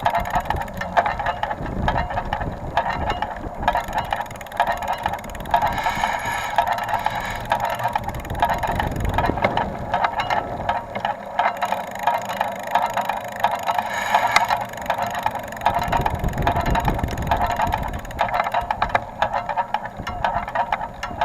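Rear wheel of a Carrera Crossfire 2 bicycle turning and making a noise: a continuous mechanical whir with many small clicks and a rattle running through it.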